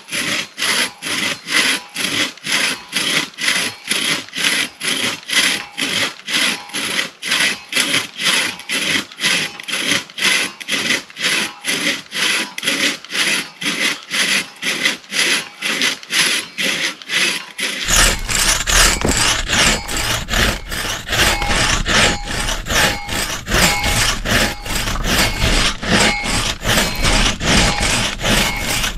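A hand crosscut saw cutting through a log in steady back-and-forth strokes, about two a second, each stroke a dry rasp of teeth in wood. The sawing sounds closer and fuller from about two-thirds of the way through.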